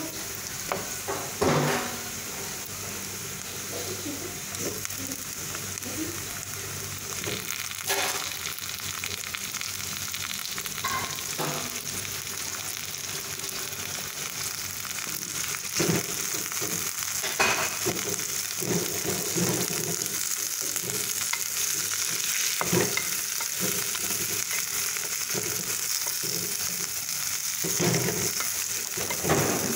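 Chopped onions sizzling in hot oil in a stainless steel wok, a steady frying hiss. A wooden spatula stirs and knocks against the pan a few times, and chopped tomatoes are added and stirred in while the sizzling carries on.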